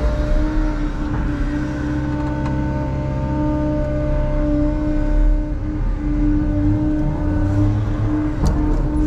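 Bobcat E165 excavator's diesel engine running steadily under hydraulic load, with a steady whine over the engine rumble as heard inside the cab, while the arm digs and swings a loaded bucket. A few sharp clicks come near the end.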